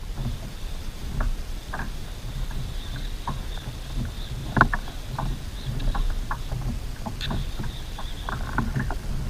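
Water lapping against a plastic fishing kayak's hull at sea, over a steady low rumble, with scattered small clicks and knocks and one sharper knock about halfway through.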